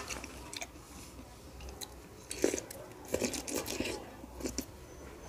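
Wet chewing and lip-smacking of juicy fresh pineapple chunks close to the microphone: a run of small clicks and moist smacks, busiest a couple of seconds in.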